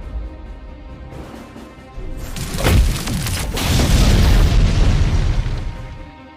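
Sound-effect explosion boom: a loud rumbling blast that starts about two seconds in with a sharp hit, swells, then fades away, over background music.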